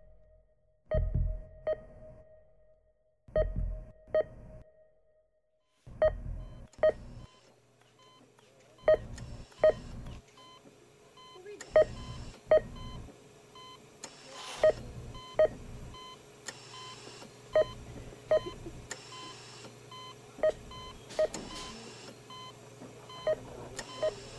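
Heart-monitor-style electronic beeps in pairs, each beep with a low thump under it like a heartbeat, a pair about every three seconds. A faint low hum and soft hiss come in about seven seconds in.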